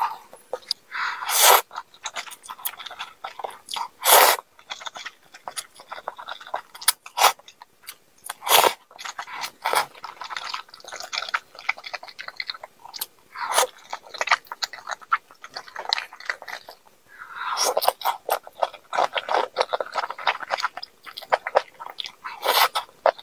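A person chewing close to the microphone while eating malatang noodles and fish tofu: a dense run of small wet mouth clicks, broken by a few louder, crunchier bites.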